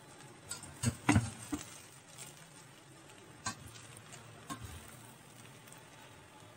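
Metal spoon stirring cooked dum biryani in a stainless steel pot: soft rustling of rice with scattered clinks and knocks of the spoon against the pot, loudest about a second in.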